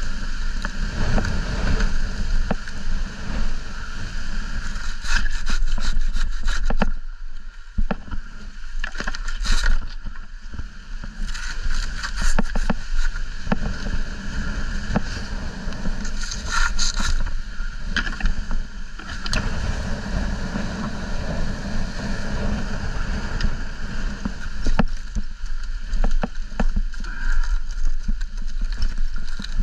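Wind buffets the microphone with a steady low rumble. Over it come several bursts of quick strokes and crackling as a hand pruning saw cuts through dry dead palm fronds and fibre.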